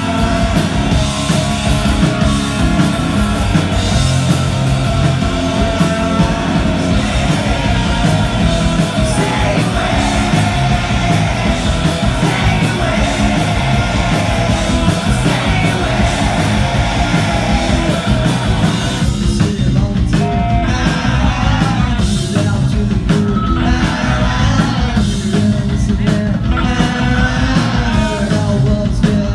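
Live rock band playing loud: electric guitar, bass guitar and drums, with a male lead singer singing into the microphone, heard from within the audience.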